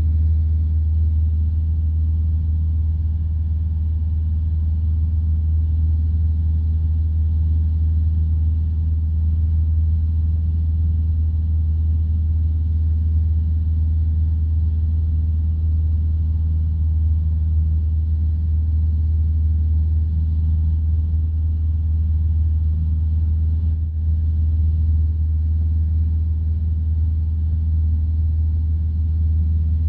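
Steady drone of a light aircraft's piston engine and propeller in cruise, heard from inside the cabin: a deep, unchanging hum with no change in power.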